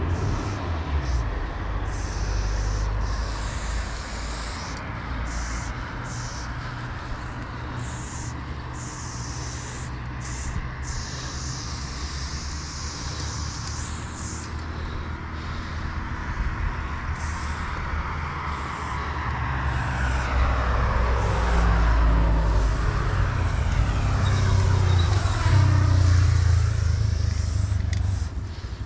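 Aerosol spray paint can hissing in repeated bursts, short and long, as paint is sprayed onto a wall, over a low traffic rumble. In the second half a road vehicle passes, its sound swelling and then fading near the end.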